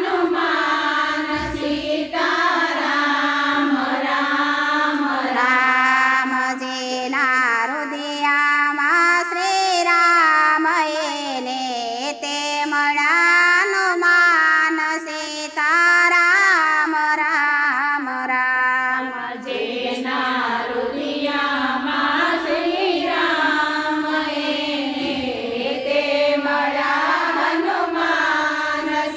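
Women singing a Gujarati devotional kirtan (bhajan) to Rama and Hanuman.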